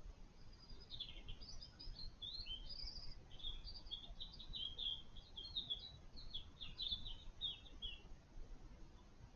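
A songbird singing one long, rambling phrase of quick, varied high notes that stops about a second before the end, over a faint low background rumble.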